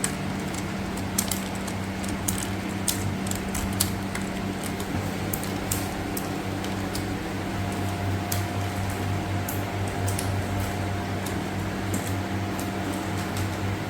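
Plastic keyboard keycaps being pried off by hand: scattered sharp clicks at an irregular pace, thickest in the first half. A steady low hum runs underneath.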